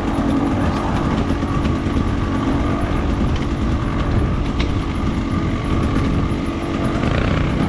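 A vehicle engine running steadily and roughly at an even speed, without revving.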